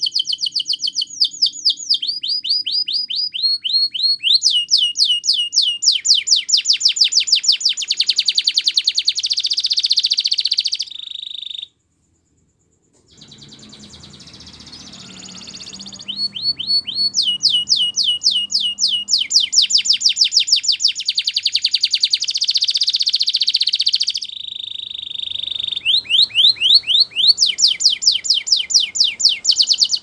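Domestic canary singing long fast trills: runs of rapid repeated high notes, many sliding down in pitch, with a few held steady tones. The song breaks off into a brief silence just before halfway, then resumes.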